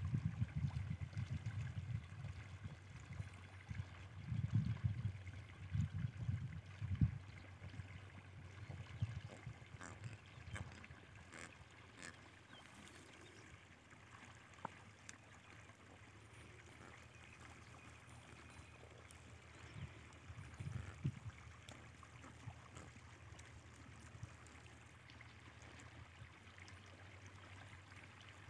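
Quiet open-air field ambience: low, gusty wind rumble on the microphone during the first several seconds and briefly again later, over a faint steady low hum.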